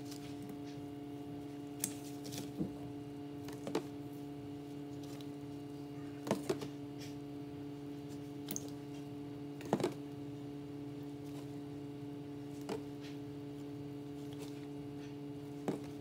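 Thick soap paste poured and scraped from a plastic cup onto wet sponges in a stainless steel sink: a few short soft clicks and squishes, two close pairs of them near the middle, over a steady electrical hum.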